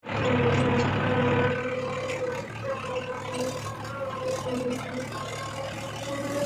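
Heavy diesel machinery engine running steadily with a wavering whine. It starts suddenly and is loudest for the first second or so.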